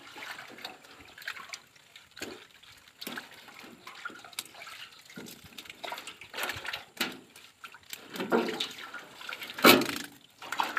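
Water splashing and sloshing in irregular bursts, the loudest one near the end.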